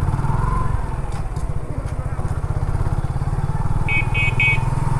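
Motorcycle engine running at low road speed with an even, fast low pulse as the bike rolls slowly along. About four seconds in come three short high-pitched beeps.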